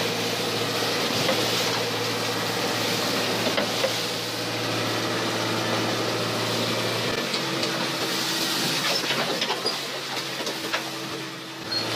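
A small fishing boat's engine runs steadily under way, under a continuous hiss of wind and rushing water. About seven seconds in, the engine note drops a little, and a few short clicks and knocks follow near the end.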